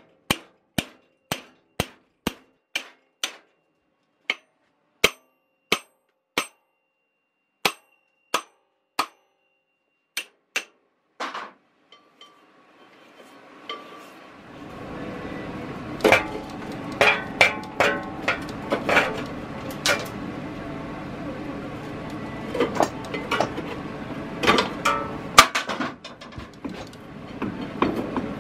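Wheel puller and rusted brake drum of a Panzer T758ES tractor: a run of sharp metallic clicks, about two a second, as the puller is worked with a wrench, followed from about halfway through by a steady rough noise with irregular metal knocks and clanks as the drum is worked off the axle.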